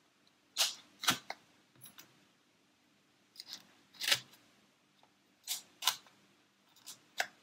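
Rubbery packing foam squeaking and scraping in short, scratchy bursts as bamboo kebab sticks are pushed through foam blocks into a foam base. About nine irregular scrapes, a couple of them in quick pairs.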